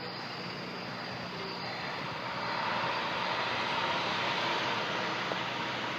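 Intermodal container-handling machine driving past, a steady engine-and-rolling noise that swells from about two seconds in and eases a little near the end.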